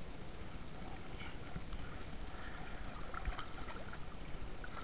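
Steady sound of water around a small boat as a gill net is hauled in by hand, with a few faint taps and clicks from handling the net and fish.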